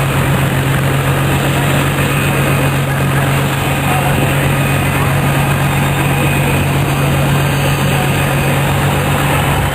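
A steady engine-like drone with a constant low hum, unchanging throughout.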